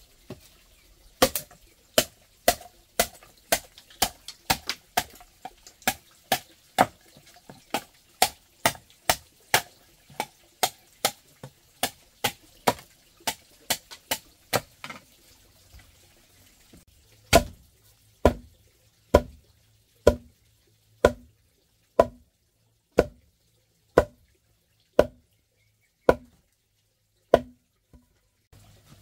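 Machete blade chopping into wood: quick, light strikes about two a second, then after a short pause, slower and heavier strikes about once a second with a deeper thud.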